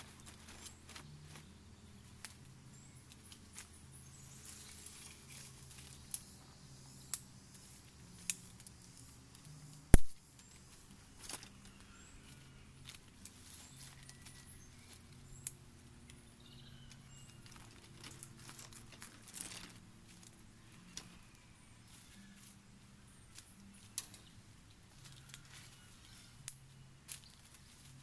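Dry twigs and branches snapping and rustling by hand in scattered sharp cracks as firewood is gathered, with one much louder knock about ten seconds in.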